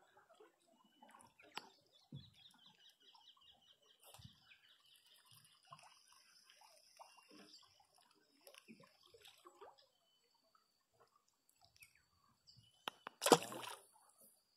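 Faint clicks and rustles of a small fish being handled and unhooked, with a bird trilling faintly for a couple of seconds. Near the end comes one sudden loud splash as the fish goes into the water by a wire keep basket.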